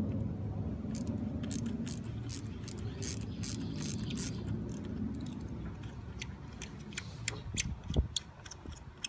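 Sharp, irregular metallic clicks and light clanks of hand tools being worked on the truck, over a low vehicle rumble that fades out over the first several seconds. A single heavier knock about eight seconds in.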